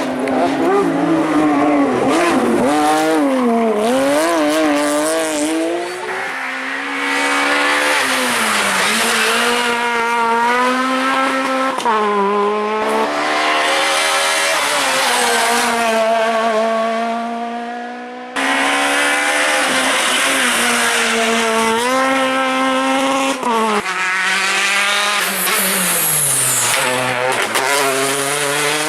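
Rally car engines at full load, revving up hard and dropping back again and again through gear changes. The sound jumps abruptly between passes a few times.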